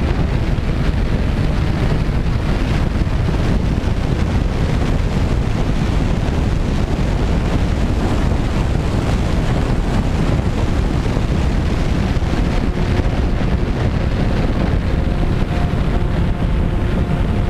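Wind buffeting the microphone of a camera mounted on a flying radio-controlled Twin Otter model, a steady rush heaviest in the lows. The faint steady hum of its twin propellers and motors runs underneath, clearer in the second half.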